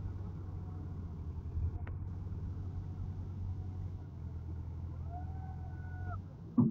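Massey Ferguson tractor's diesel engine running steadily under the heavy load of a trolley full of earth. A little before the end, a steady high tone rises in and holds for about a second and a half over the engine.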